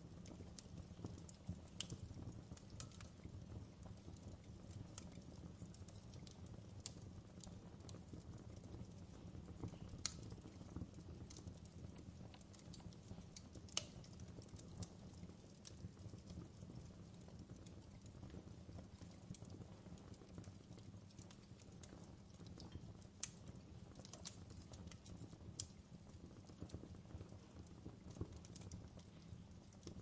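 Fire crackling: irregular sharp pops and snaps, a few louder ones among many faint ones, over a low steady rumble.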